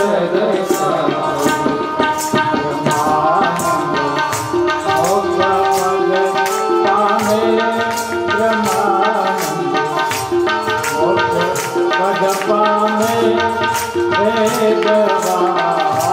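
Devotional bhajan music: tabla playing a steady beat under a man's sung melody, with held notes from an accompanying instrument.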